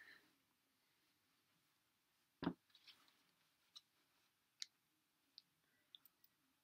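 Near silence: room tone with a few faint, scattered clicks and one short, soft knock about two and a half seconds in.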